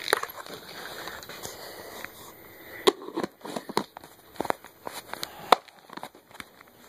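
Cat crunching dry kibble from a bowl: irregular sharp crunches, few at first and coming thicker and louder from about three seconds in.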